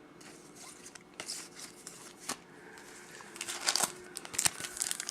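Chrome baseball trading cards being handled and flipped through by hand: faint scattered clicks and slides, growing busier near the end.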